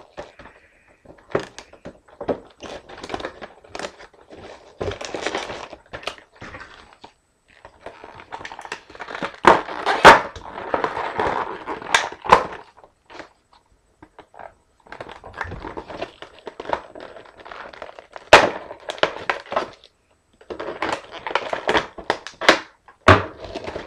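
Action-figure packaging being pulled and torn open by hand: irregular bursts of crinkling and cracking, with several sharp knocks.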